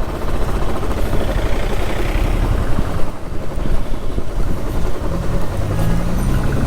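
Motorcycle engine running under a steady rumble of road and wind noise on the rider's microphone, its pitch rising near the end as it accelerates.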